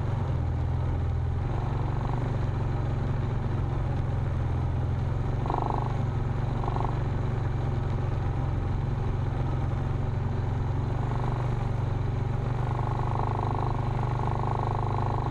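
Off-road vehicle engine running steadily at low trail speed on sand, a constant low drone with driving noise over it. A faint tone comes and goes a few times, about five seconds in and again near the end.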